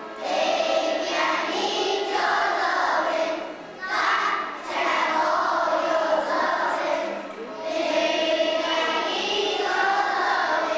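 Children's choir singing together in three phrases with brief breaks between them.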